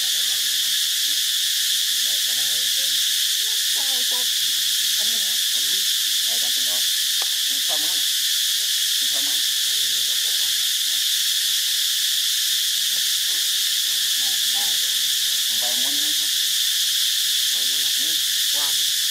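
Steady, high-pitched insect chorus droning without a break, with faint, short, wavering calls scattered beneath it.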